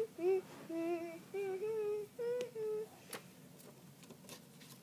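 A girl humming a short wordless tune in held notes, stopping about two and a half seconds in. After that, a few faint clicks and rustles as a hand moves a sheet of paper.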